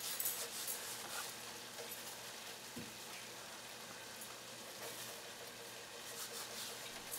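Thick tomato-onion curry gravy simmering in a pot on low heat, a faint steady sizzle, with light crackly rustling from dried fenugreek leaves being crushed between the fingers and sprinkled over it, mostly near the start and again near the end.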